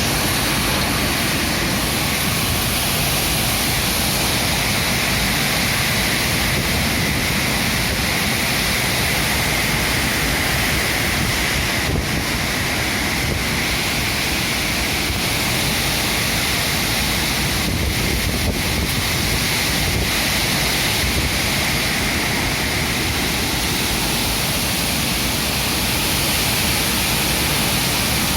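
Strong wind blowing through trees, a loud, steady rush of noise with no let-up.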